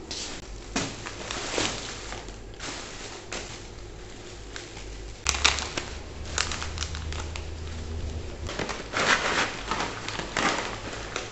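Thin plastic carrier bag and plastic food packets rustling and crinkling in irregular bursts as groceries are pulled out of the bag and put down on a counter.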